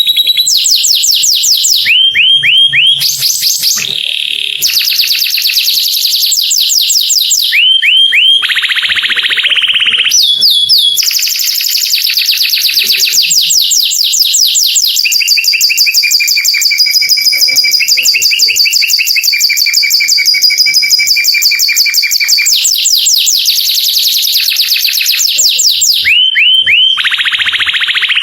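Canary singing a long, continuous song: fast high-pitched rolls of rapidly repeated notes that change from phrase to phrase, broken a few times by short groups of three or four swooping notes.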